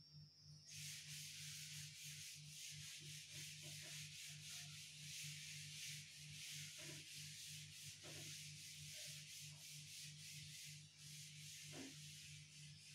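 A cloth wiping chalk off a chalkboard: a faint, steady rubbing hiss that starts about a second in and keeps on, over a steady low hum.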